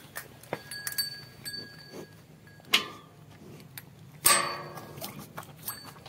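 Cow drinking from a steel bowl: a run of knocks and clinks against the metal bowl, with a brief high ringing about a second in, and two louder sudden sounds about three and four seconds in, the second ringing on for about a second.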